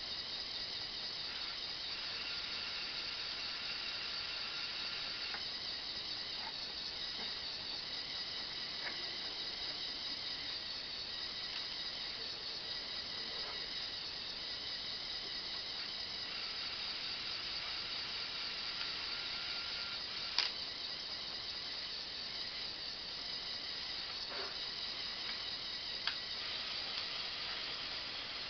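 Small electric motors of a remote-controlled LEGO Technic backhoe whining as they drive the digger arm, the tone starting and stopping as different functions run, over a steady hiss. A sharp click about two-thirds of the way through, and another near the end.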